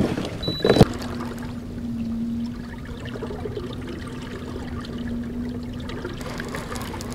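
Water trickling and lapping against a kayak's hull, with a sharp click just under a second in followed by a steady low hum.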